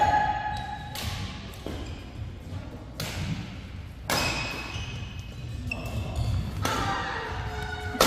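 Badminton rally: rackets striking the shuttlecock in a string of sharp cracks a second or two apart, ringing in the large hall, with court shoes squeaking on the floor.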